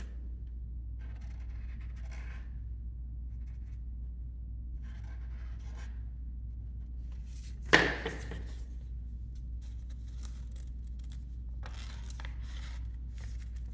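Faint rustling and scratching of a small piece of paper being handled, over a steady low hum, with one sharp tap about eight seconds in.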